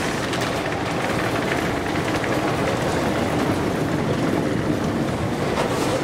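Metro station escalator running while being ridden down: a steady mechanical noise with faint scattered clicks.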